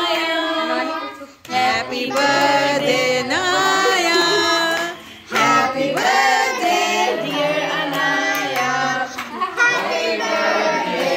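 A group of voices, children's among them, singing a birthday song in phrases with short breaks between them.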